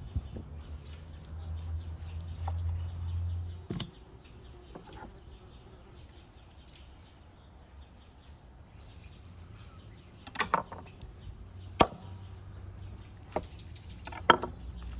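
Knife cutting through raw beef hooves on a wooden chopping board: sharp knocks of the blade striking the board, several in quick succession in the last few seconds. Birds chirp faintly, and a low rumble runs for a couple of seconds near the start.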